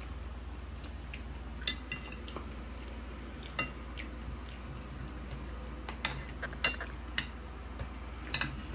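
Metal fork and spoon clinking and scraping against a ceramic dinner plate as food is picked up, a dozen or so light irregular clinks over a steady low hum.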